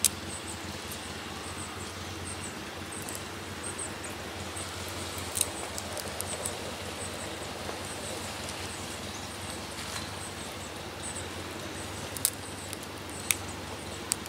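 Outdoor ambience with a car driving slowly past around the middle, over a steady low hum. Faint high chirps repeat throughout, and a few sharp clicks stand out, two of them close together near the end.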